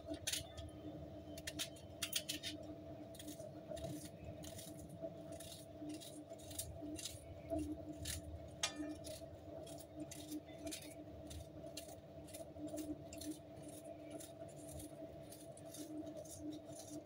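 Small kitchen knife cutting a raw red onion held in the hand: faint, crisp clicks at irregular intervals, about one a second, as each slice snaps off. A steady low hum runs underneath.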